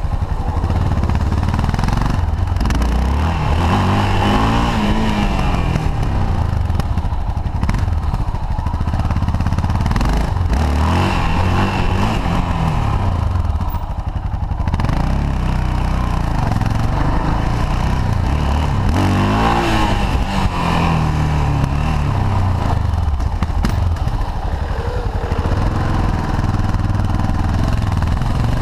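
Motorcycle engine running while being ridden, its revs rising and falling several times as it accelerates and eases off, over a steady low rumble.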